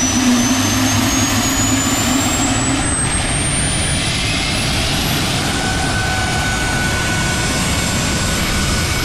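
Rover 1S60 gas turbine engine running loud. Its high whine climbs steadily in pitch over the first five seconds or so as it spools up, then settles into a steady jet roar.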